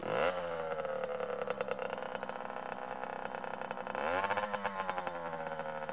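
Small dirt bike engine catching and revving briefly as it starts, then idling steadily, with a second short rev about four seconds in.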